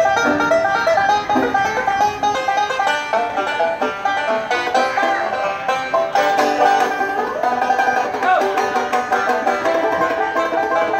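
Two banjos picked together in a fast bluegrass tune, a quick run of notes with a few notes bent.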